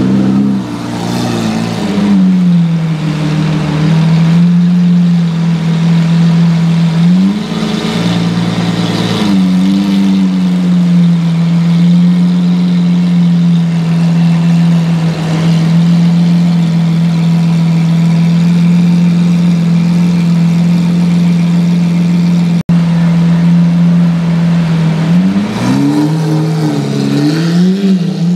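Hamann-tuned Lamborghini Aventador's 6.5-litre V12 running at a steady low-rpm drone while crawling in traffic. Its pitch climbs and falls back in short throttle blips near the start, about eight seconds in, and twice near the end.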